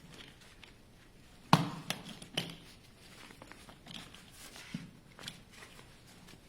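Bungee-corded frame poles of a folding camping chair knocking and clicking as they are fitted through the seat fabric: one sharp knock about a second and a half in, a second near two and a half seconds, then lighter taps and handling rustle.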